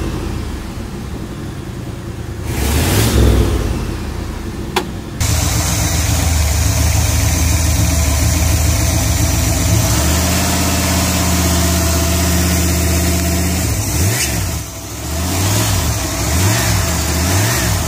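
Pontiac 301 Turbo V8 revved once about three seconds in. After a cut about five seconds in, a rebuilt 301 Turbo idles steadily, then is blipped a few times near the end.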